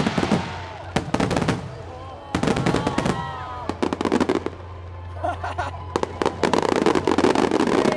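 Starmine fireworks barrage: many aerial shells bursting in rapid volleys, the bangs coming thick at first, thinning out in the middle, then a dense run of reports from about six seconds in. Music plays underneath.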